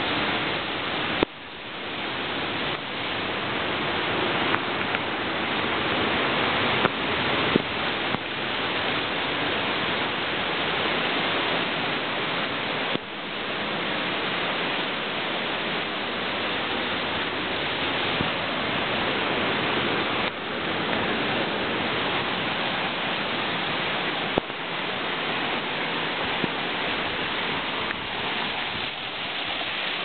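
Waterfall and river water rushing steadily, with a few brief knocks.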